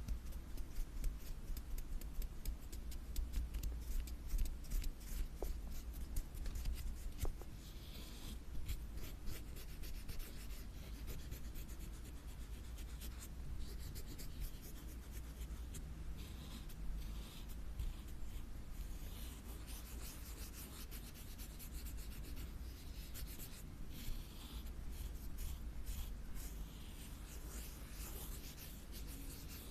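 Close-miked ASMR scratching on an object: quick taps and clicks for the first several seconds, then scratchy rubbing strokes.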